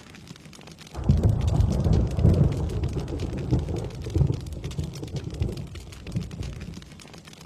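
Rain falling steadily, with a crack of thunder about a second in that rumbles low and loud, then pulses and dies away over the next six seconds.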